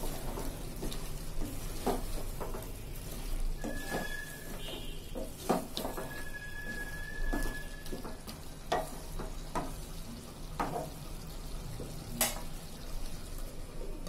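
Wooden spatula stirring and scraping chicken pieces in an aluminium pot as they fry in spiced oil, with a low sizzle and repeated knocks of the spatula against the pot. A sharp clank near the end as the aluminium lid goes on.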